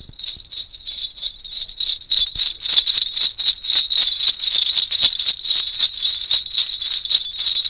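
A string of horse bells shaken in a steady rhythm, about four jingles a second. It is a foley prop for the sound of a horse.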